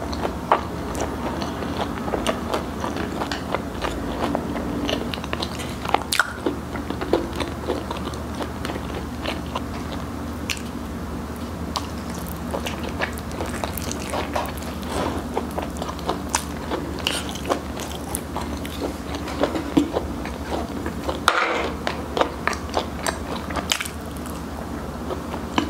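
Close-up chewing and crunching of crispy fried chicken, with many short crisp crackles as the batter breaks, and wet chewing sounds between them.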